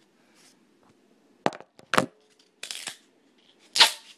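Duct tape being handled and ripped: two sharp clicks, then a short rasping rip of tape about two and a half seconds in and a louder rip near the end.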